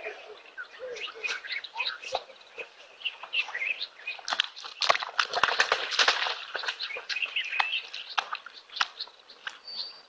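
Wild birds chirping and calling in a busy chorus of short notes. Around the middle, a louder burst of rustling noise with clicks lasts about two seconds.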